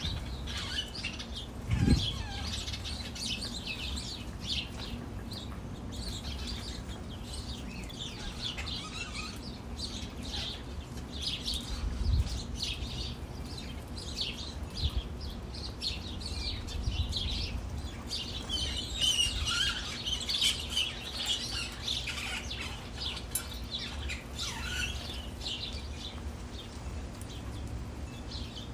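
A flock of small songbirds chirping and twittering continuously, busiest a little past the middle, with a dull low thump about two seconds in.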